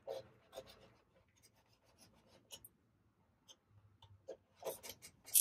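Cardboard packaging being handled and opened: soft scraping, rubbing and small clicks, with a louder scratchy rustle about a second before the end.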